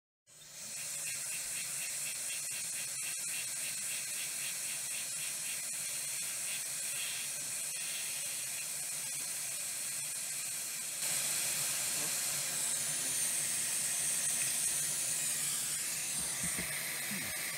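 Hot air gun blowing a steady hiss of hot air onto a circuit board, getting a little louder about two-thirds of the way through. It is heating a soldered-down metal shielding can to free it from the board.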